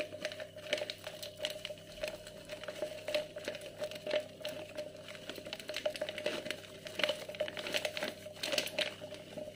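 Paper sachet of gelatin powder crinkling as it is squeezed, shaken and pulled open to tip out the last powder, which is sticking in the damp packet; irregular crackles over a steady low hum.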